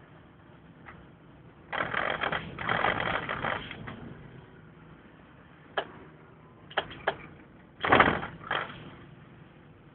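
Rustling and rattling with a few sharp clicks and knocks, the loudest a thump about eight seconds in, over faint cabin noise of a moving vehicle.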